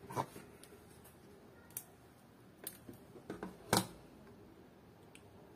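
A handful of small, sharp plastic clicks and taps from handling the Hobbywing programming card and unplugging its lead from the ESC, the loudest about four seconds in.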